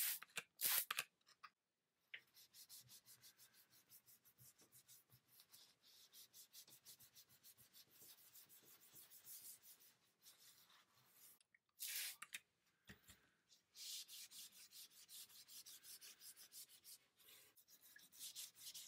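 A trigger spray bottle squirting cleaner a few times, then a cloth rubbed back and forth in quick strokes over the painted wooden rocking chair. A couple more squirts about twelve seconds in, and the wiping goes on. Faint overall.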